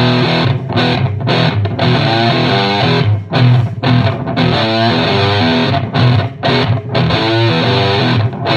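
Suhr Modern electric guitar played through a PLX FUMM fuzz pedal into the clean channel of an Ampeg VH-140C amp and two Thiele cabinets: thick, fuzzy distorted riffing with several short, abrupt stops between phrases.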